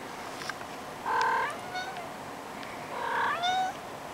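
A cat meowing twice, two short calls about two seconds apart.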